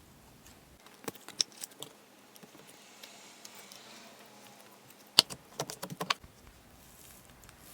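Slime being handled and pressed, giving crisp clicks and crackles in two short clusters, one about a second in and a denser one about five seconds in.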